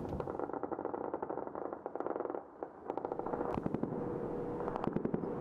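Rapid automatic anti-aircraft machine-gun fire, tracer rounds shot at Shahed attack drones. The bursts come in quick succession, with a brief lull about two and a half seconds in.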